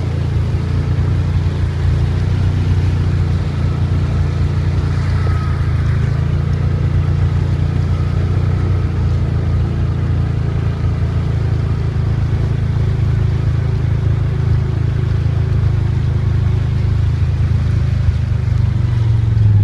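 Vehicle engine running steadily while driving, a constant low drone.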